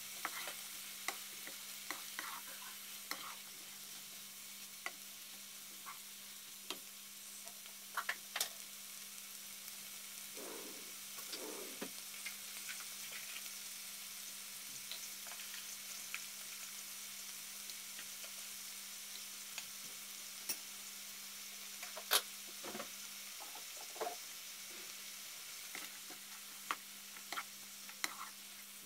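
Shredded cabbage and carrot stir-frying in a nonstick wok: a steady sizzle, with frequent short knocks and scrapes of a wooden spatula against the pan as the vegetables are tossed.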